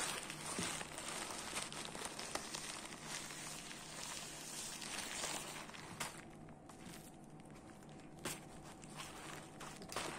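Bubble wrap and plastic packaging crinkling and rustling as an e-bike hub motor is lifted and turned over by hand, with a few sharp clicks and knocks. The rustling thins out about six seconds in, leaving scattered clicks.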